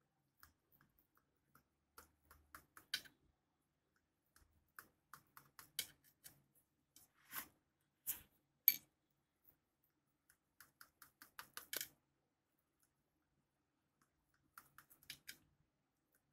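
Faint, irregular clicks and light taps of a kitchen knife against a metal pan as soft steamed khaman dhokla is cut into pieces, coming in small clusters with gaps between, one sharper tap a little past the middle.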